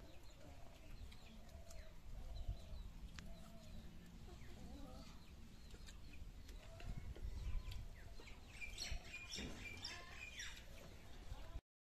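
Faint outdoor ambience with small birds chirping, the chirps thickest near the end, over a low rumble. The sound cuts off suddenly just before the end.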